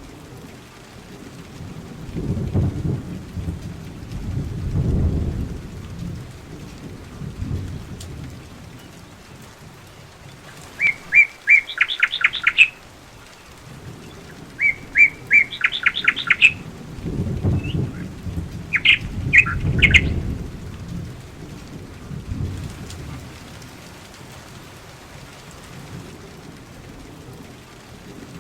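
Steady rain with low rolls of thunder, once a couple of seconds in and again over halfway through. A small bird gives three quick runs of chirps in the middle.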